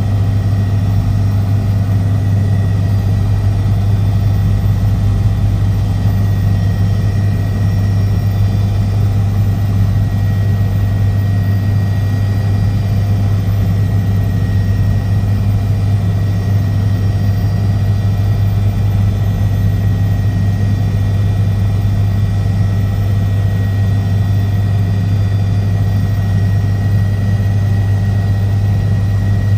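Helicopter in flight: a loud, steady drone of engine and rotors with a strong low hum that does not change.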